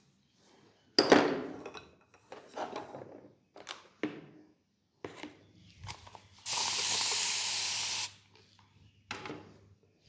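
A sharp knock about a second in and a few short rubbing and tapping sounds, then a steady spray hiss lasting about a second and a half past the middle.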